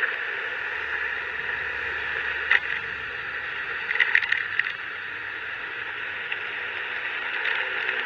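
Steady wind and road noise from a motorbike ride, heard as an even rushing hiss, with a sharp click about two and a half seconds in and a short run of rattling clicks around four seconds in.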